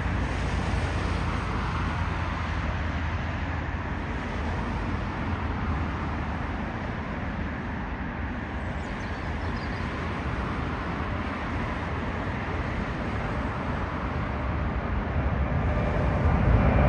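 Airbus A380's four jet engines at takeoff thrust: a steady low roar through the takeoff roll and lift-off, growing louder near the end as the airliner climbs toward overhead.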